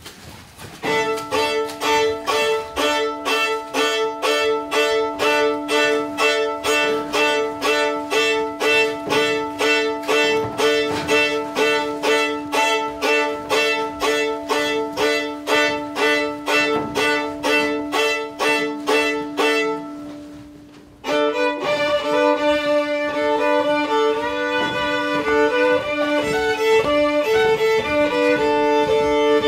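Fiddle music: one note bowed again and again at an even pulse over a steady drone string, fading out about twenty seconds in, then a moving melody over the same drone.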